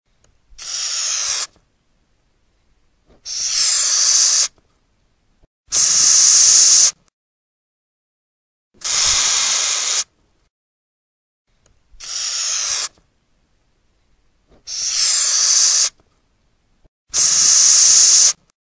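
Madagascar hissing cockroach hissing, seven separate hisses of about a second each with short silent gaps, a few swelling in before peaking. The hiss is air forced out through the breathing pores on the abdomen.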